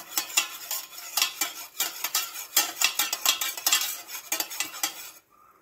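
A metal spoon stirring fast in a stainless steel tumbler of hot water, clinking and scraping against the sides as sugar dissolves. The stirring stops near the end.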